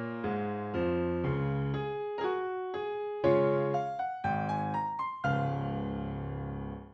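Background piano music: plucked-sounding notes over a low accompaniment, a climbing run of single notes in the middle, then a held chord that cuts off suddenly at the very end.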